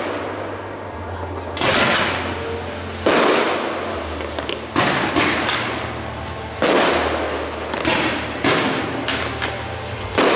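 Fireworks shells bursting in the sky: about eight sharp bangs a second or two apart, each trailing off in a long echo, coming faster near the end.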